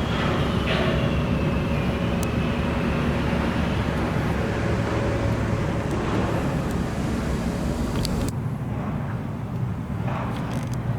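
Steady rumble of road vehicles passing, with traffic noise. About eight seconds in it changes abruptly to a duller, quieter rumble.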